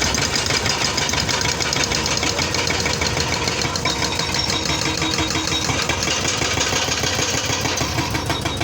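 Excavator engine running steadily with a fast, even pulsing.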